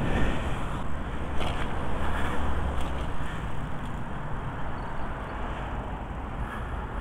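Wind buffeting the action-camera microphone, with tyre and road noise from a moving e-bike and car traffic going by. The low rumble is heaviest in the first few seconds and then eases.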